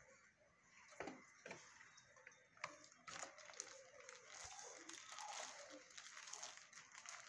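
Near silence: quiet room tone with a few faint, scattered clicks and taps.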